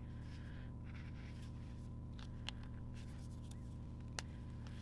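Felt-tip marker scratching faintly across paper, then two short, sharp clicks about a second and a half apart.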